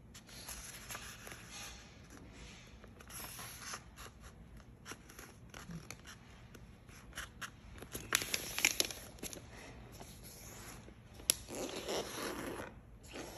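A sheet of printer paper is folded and creased by hand. It rustles and crinkles as it is lifted and bent, with sharper crackles about eight seconds in and rubbing near the end as the fold is pressed flat.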